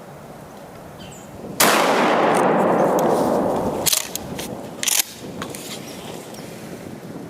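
A single loud gunshot about one and a half seconds in. Its report rolls away over about two seconds. Two sharp metallic clicks follow, about one second apart.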